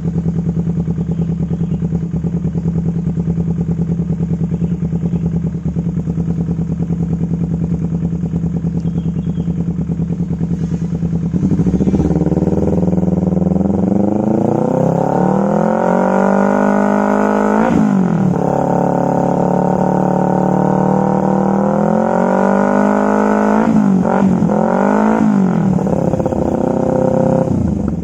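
Kawasaki Ninja 250 FI parallel-twin engine with an Akrapovic exhaust idling steadily, then revved up about twelve seconds in and held at high revs, with three quick dips and blips before dropping back near the end.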